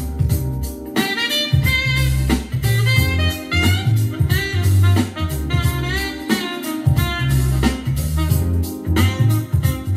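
Instrumental music played through a portable Bluetooth speaker: a lead melody that bends and glides over a heavy, repeating bass line.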